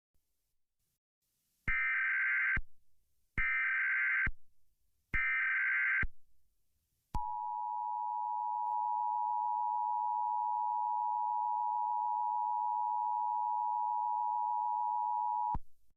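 Emergency Alert System broadcast tones: three short bursts of SAME header data, a rapid warbling digital chirp about a second long each, followed by the EAS two-tone attention signal, a steady dual tone held for about eight seconds that cuts off near the end.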